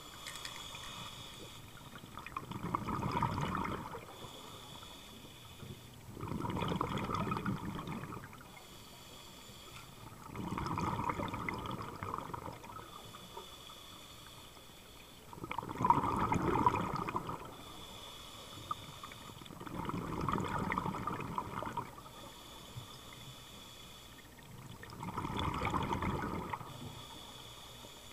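Scuba diver breathing through a regulator underwater: a short hissing inhale, then a longer rush of bubbles on the exhale, repeating every four to five seconds, six breaths in all.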